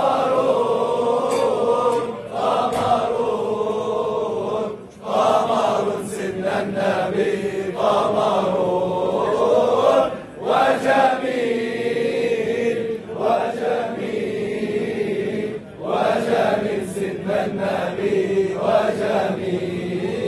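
Large crowd of men chanting an Arabic devotional song in praise of the Prophet in unison, in long drawn-out phrases with short breaks between them.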